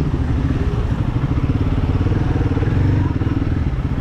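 Royal Enfield Guerilla 450's single-cylinder engine running steadily while riding, its exhaust note heard raw with a fast, even pulsing.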